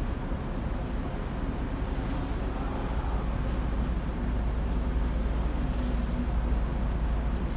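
Steady low rumble and hiss of cruise ships under way at sea, heaviest in the deep bass, with a faint steady hum.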